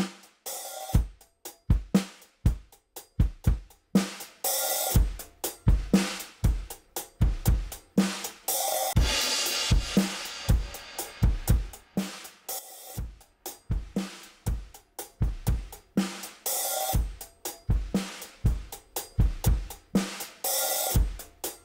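Recorded drum kit playing a steady groove of kick, snare and hi-hat, with a cymbal crash about every four seconds and a longer cymbal wash around the middle. It is a drum-bus mix run through a WesAudio Beta76 1176-style compressor for a test.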